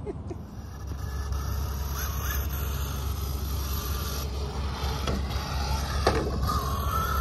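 Electric radio-controlled truck running on a 2S LiPo across grass: its motor whines faintly and rises in pitch briefly about two seconds in and again near the end, over a low steady rumble and the rustle of tyres and handling.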